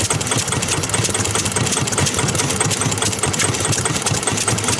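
Vintage Yanmar A3 single-cylinder diesel engine running steadily, with a fast, even knocking beat.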